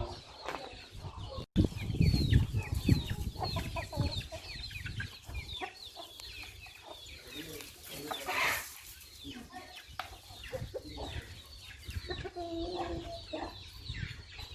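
A flock of free-range country chickens clucking and chirping continuously in short, repeated calls. There is a brief dropout about one and a half seconds in, followed by a low rumble for a couple of seconds.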